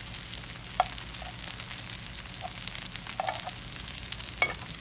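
Japchae glass noodles and pork belly sizzling in pork fat on a hot barbecue griddle, stirred with metal tongs that click against the pan a few times.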